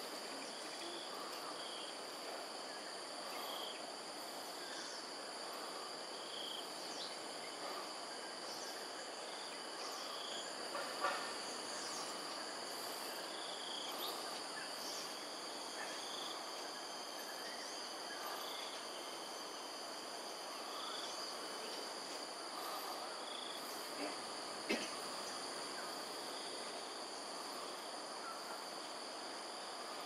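Steady insect chorus, crickets making a continuous high-pitched drone, with a short call repeating roughly every second and a half. Two brief sharp sounds stand out, about eleven and twenty-five seconds in.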